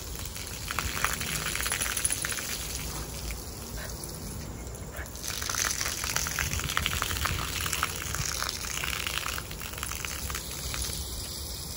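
Garden hose water pouring and spattering onto a wet concrete patio, a steady splashing that thins briefly around the middle and then picks up again.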